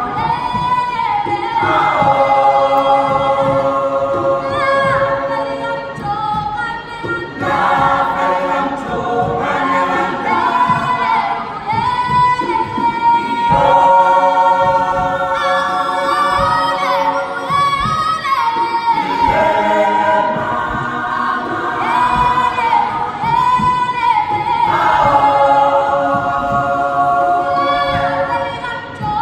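A mixed group of South African young women and men singing together a cappella in harmony, in phrases a few seconds long.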